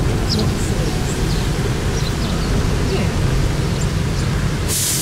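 Moving open-top tour bus: wind rumbling on the microphone over the bus's engine and road noise. A short burst of hiss starts near the end.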